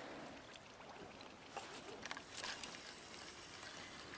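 Faint water sounds with a few light splashes and ticks about one and a half to two and a half seconds in, as a small panfish is reeled up and lifted out of the water beside a kayak.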